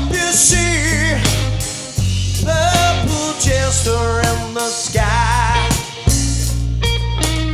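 Blues-rock band playing live: a wavering lead line with bent notes and wide vibrato over bass guitar and drum kit.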